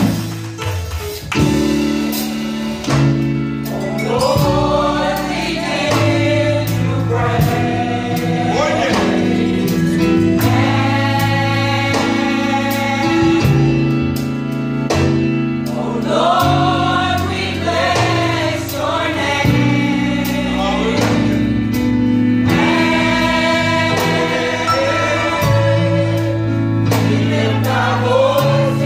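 Gospel choir of women singing together, backed by instrumental accompaniment that holds low chord notes and changes them every second or two, with a steady beat of short sharp strokes.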